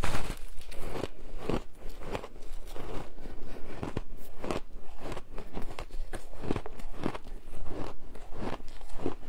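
Colourful shaved ice being bitten and chewed close to a clip-on microphone, and broken off the mound by gloved hands. The crunches come several a second, sharp and irregular.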